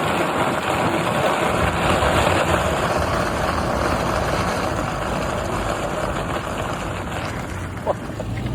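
1999 Toyota Land Cruiser on the move: steady rush of road and wind noise over the engine's low rumble, with a short squeak near the end.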